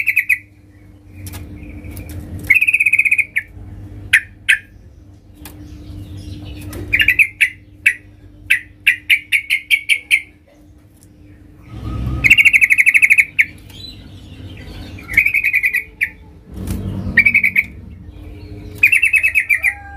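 Caged yellow-vented bulbul (trucukan) singing loudly in repeated bursts of fast chattering trills, about eight in all, with short sharp call notes between them.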